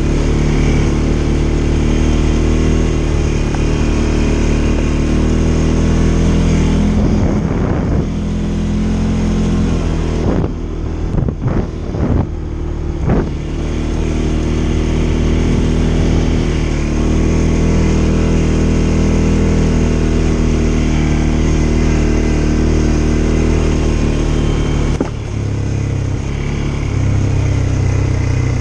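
CFMoto CForce 550 ATV's single-cylinder engine running under load on a rough dirt trail. Its note shifts about seven seconds in, and the throttle is eased off and blipped several times around ten to thirteen seconds in before it settles back to a steady pull.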